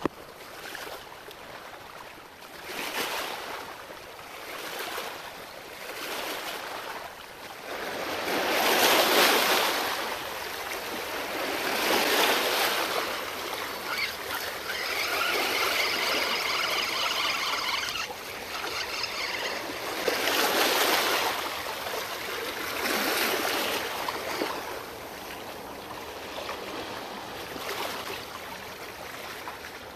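Small sea waves washing against shoreline rocks, swelling and draining away every second or two, with the biggest surges about nine, twelve and twenty-one seconds in. For a few seconds in the middle, a faint whirring with several steady tones runs beside the water.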